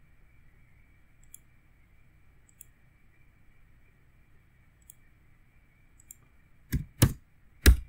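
A few faint ticks spaced a second or more apart, then three loud keystrokes on a computer keyboard near the end.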